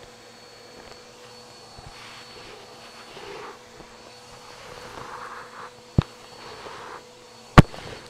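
A vacuum cleaner running steadily with a constant motor whine, its air noise swelling and easing. There is a sharp knock about six seconds in and a louder one near the end.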